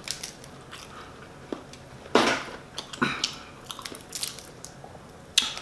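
Boiled crawfish shells cracking and crunching as they are peeled apart by hand, a few sharp cracks with small clicks between, the loudest about two seconds in.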